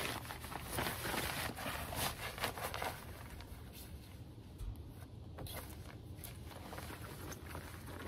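Irregular crunching and rustling close to the microphone for about the first three seconds, then quieter with a few soft knocks.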